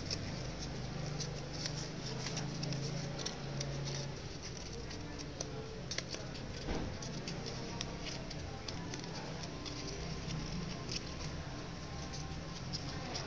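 Sheet of origami paper crinkling and crackling in irregular small clicks as fingers fold and pinch creases into it, over a steady low hum.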